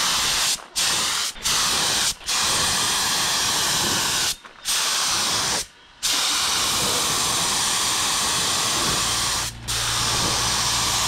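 Air-fed gravity spray gun hissing as it sprays paint, in passes broken by short pauses about six times where the trigger is let go.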